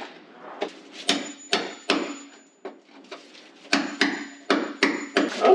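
Hammer driving a chisel into the fibreglass of a thick boat bulkhead, in sharp strikes about two or three a second, in two runs with a short pause in the middle. The glass is very hard, like chiseling a rock.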